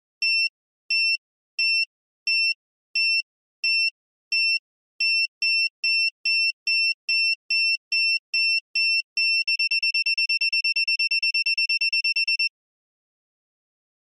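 Electronic bomb-timer countdown beeping: short, high beeps that come quicker and quicker, from under two a second to about three a second, then a rapid run of about eight a second for the last three seconds. The beeping cuts off suddenly.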